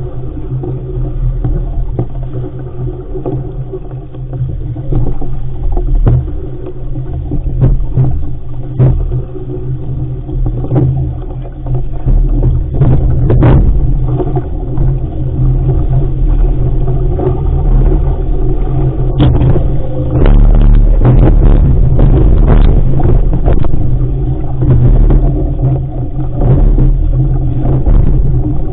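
Wind rumbling heavily on the microphone aboard an RS500 sailing dinghy under way, over rushing water, with scattered sharp clicks and splashes that come thickest about two-thirds of the way through.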